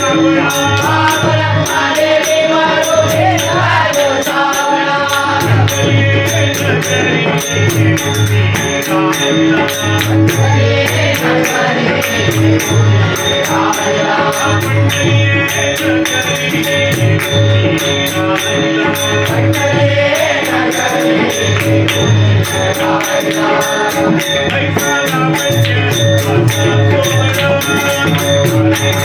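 Marathi devotional bhajan (abhang) sung with harmonium accompaniment. Singing voices are carried over a steady jingling percussion rhythm and a regular low drum beat.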